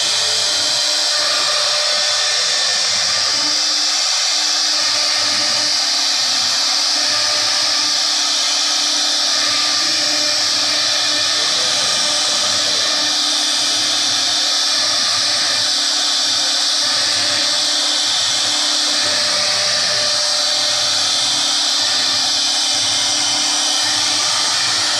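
CNC router spindle running at high speed while its bit carves engraved grooves into a wooden board: a steady, high-pitched whine and hiss of cutting.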